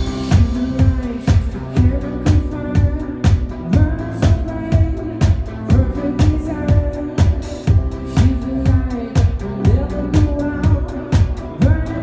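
Synth-pop band playing live: an electronic kick drum on a steady beat about twice a second, under keyboards and ticking hi-hats.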